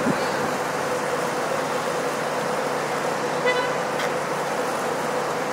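Steady city traffic ambience, a constant hum with a faint steady tone. About three and a half seconds in comes a short, high, horn-like toot, followed by a sharp click.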